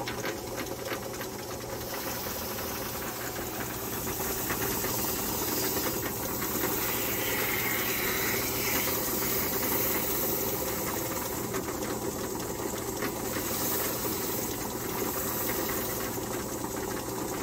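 Electric bench buffer running steadily, its spinning cloth buffing wheel brushing against a dyed, wax-balmed leather holster as the leather is buffed to a shine. It makes a steady motor hum with a hiss over it.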